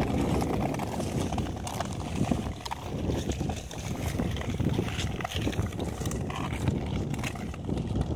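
Long-distance touring skates scraping and gliding on clear natural ice, stroke after stroke in an uneven rhythm.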